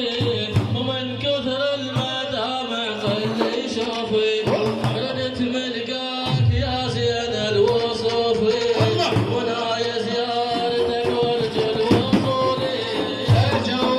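Middle Eastern devotional praise-song music: a sustained melody line over steady hand-drum strokes.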